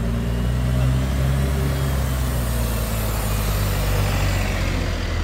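Street traffic: a motor vehicle's engine runs close by with a steady low drone, while road noise swells and fades through the middle.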